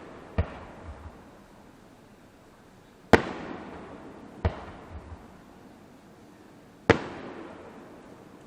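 Aerial fireworks shells bursting: four sharp booms a couple of seconds apart, each followed by a fading, echoing rumble, with a few smaller pops after the first and third.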